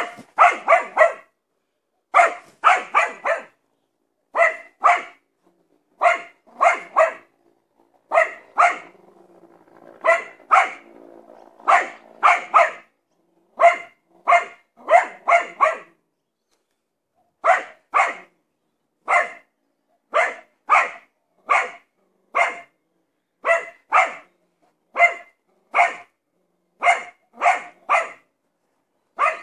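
A spaniel barking repeatedly in quick bursts of two to four sharp barks, alarm-barking at a blimp passing overhead. A faint low hum sits underneath for a few seconds about a third of the way through.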